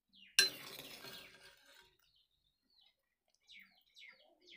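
Soaked soya chunks and their water tipped from a steel bowl into a metal kadai: a sudden wet clatter about half a second in that dies away over a second or so, followed by a few faint short sounds near the end.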